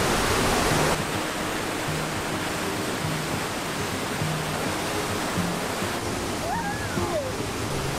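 The Rhine Falls pouring, a steady rush of heavy water that is louder in the first second. Near the end a toddler calls out "woohoo".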